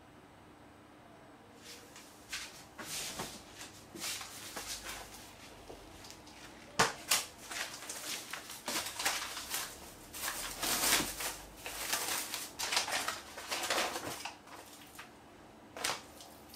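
Plastic bag and paper butcher's wrapping rustling and crinkling as raw chicken skin is unwrapped and handled, starting about two seconds in, with a sudden sharp sound about seven seconds in, the loudest moment.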